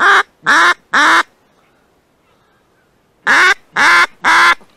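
Duck quacking: two sets of three loud, close quacks, the second set about three seconds after the first.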